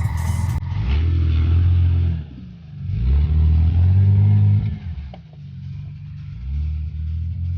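Jeep Cherokee XJ's 4.0-litre straight-six engine revving in three loud surges, dropping back between them.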